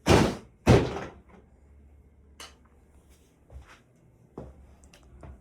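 Two loud knocks about half a second apart, then a few faint clicks and knocks: things being handled and bumped.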